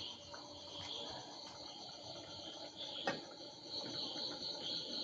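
Crickets chirping steadily in the background, with one faint knock about three seconds in.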